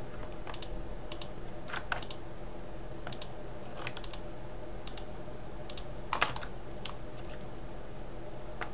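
Computer keyboard keys and mouse buttons clicking in scattered short clicks, many in quick pairs, the loudest about six seconds in, as keyboard shortcuts and mouse clicks are entered, over a steady background hum.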